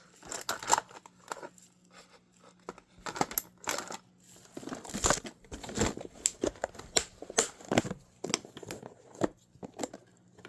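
Small metal tools and parts being handled: irregular clinks and clatters, several a second in places, over a faint steady hum.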